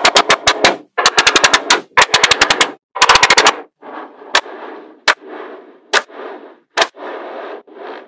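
Small magnetic balls snapping together in quick runs of sharp clicks as pieces are pressed into place. After about three and a half seconds this gives way to a softer rattling of the balls shifting against each other, broken now and then by a single sharp click.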